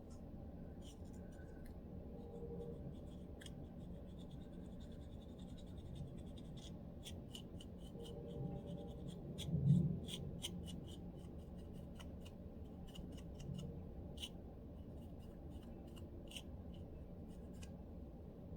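Lice comb scratching a dry, flaky scalp in short, crisp, irregular strokes, loosening dandruff flakes. The strokes come sparsely at first and more often after about seven seconds. There is a dull low thump about ten seconds in.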